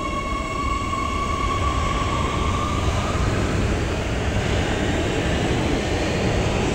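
Oslo metro train pulling out of an underground station. A high electric whine from its drive fades about three seconds in as the low rumble of wheels on rail builds up and grows louder.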